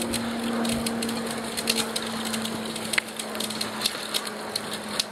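Ride noise from a Linear Limo recumbent bicycle rolling along a paved trail: a steady rumble and hiss with frequent small crackles and clicks, one sharper click about three seconds in, and a steady low hum underneath.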